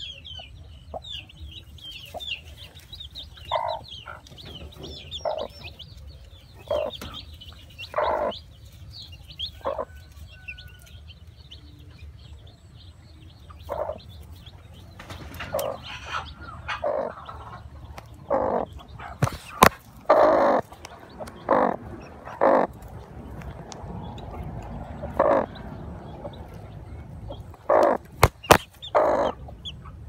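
Broody hen clucking in short, separate calls, coming more often in the second half, while newly hatched chicks peep in fast, high chirps during the first few seconds. A few sharp clicks come later on.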